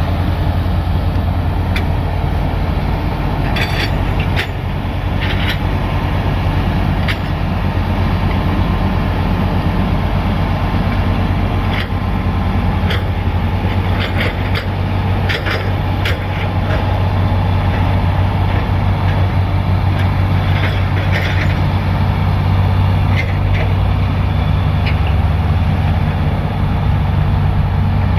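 Bulldozer's diesel engine running steadily at work, with a strong low drone and scattered short metallic clanks.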